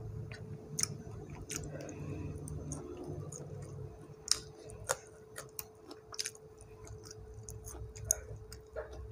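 A person chewing with the mouth close to the microphone, with many short sharp clicks scattered through, while picking apart fried mackerel with the fingers; a faint steady hum runs underneath.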